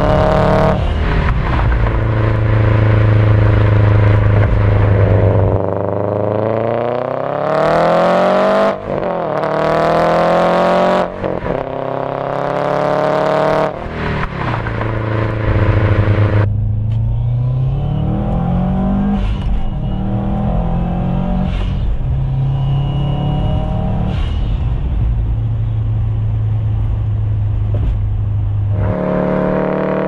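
Turbocharged 2.5-litre boxer four of a 2004 Subaru Forester XT, fitted with a Blouch 18G-XT turbo, pulling hard under full throttle. The engine note climbs three times, broken by quick gear changes about nine and eleven seconds in. Past the middle it backs off to lower, steadier running with some smaller rises.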